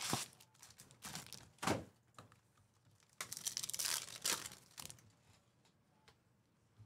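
Foil trading-card pack wrappers crinkling and tearing as packs are opened and cards handled, in several short rustling bursts that die down near the end.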